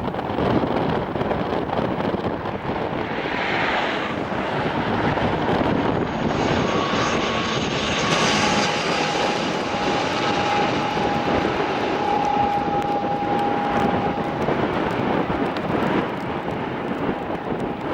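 Turboprop airliner landing in strong wind, its engine and propeller tone rising out of heavy wind noise on the microphone and dropping in pitch about eight seconds in as it goes by, then fading.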